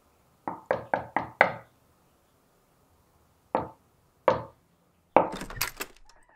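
Knocking on a wooden door: five quick knocks, a pause, then two single knocks. A louder, rattling clatter of strikes follows near the end.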